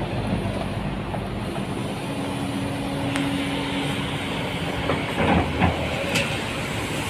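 Kobelco 350-class hydraulic excavator running, its diesel engine at a steady level with a steady hum as the boom and bucket swing. A few sharp knocks come near the end.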